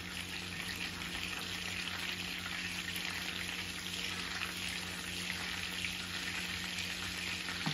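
Melted butter, olive oil and minced garlic sizzling steadily in a skillet, with lemon juice just added, while a wooden spatula stirs the sauce.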